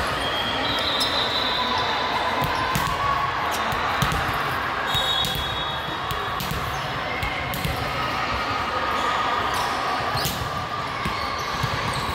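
A volleyball bouncing on a hardwood gym floor and being struck, in scattered sharp thuds that echo in a large gymnasium, over steady chatter from players and spectators.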